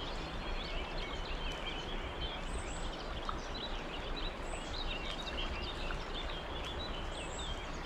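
Several birds chirping and singing over the steady rush of flowing river water.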